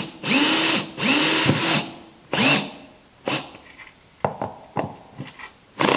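Cordless drill driving drywall screws into wooden planking in short trigger bursts, three in the first two and a half seconds, the motor whine rising at each start as the screws draw the scarfed plank end down tight. Then a few sharp clicks.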